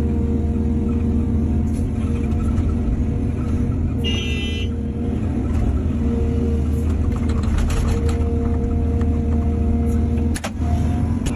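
Heavy diesel machinery running steadily, as an excavator does while loading soil onto trucks. A brief high-pitched squeal comes about four seconds in, and a sharp knock comes near the end.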